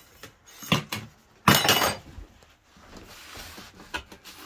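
Wooden cabin locker door and panel being handled: a couple of light knocks, then a brief clattering scrape about a second and a half in, and a faint click near the end.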